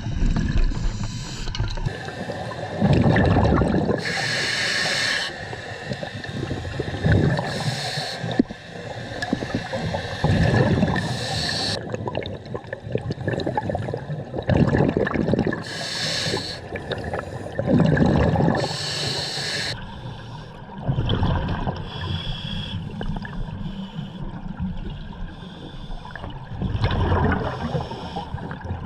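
Scuba diver breathing through a regulator underwater: a hiss of air on each inhale and a burst of bubbling exhaust on each exhale, repeating every few seconds.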